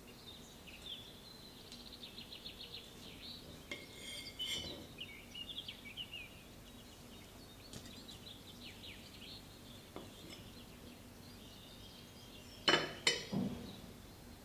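Two or three sharp clinks of a metal knife and fork against a ceramic plate near the end, as a slice of sponge cake is cut, with a lighter clink about four seconds in. Faint bird chirps in the background.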